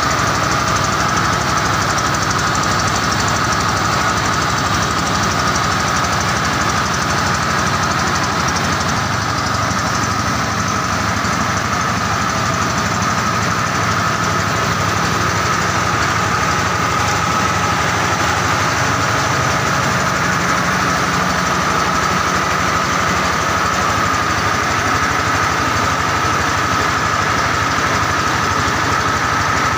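Engine-driven mobile rice huller running steadily while hulling unhusked rice (gabah). The engine and hulling machinery make an even running noise with a steady high whine over it.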